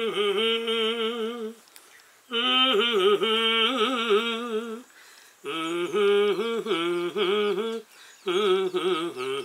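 A voice humming a slow tune in four phrases with short pauses between, the pitch wavering gently.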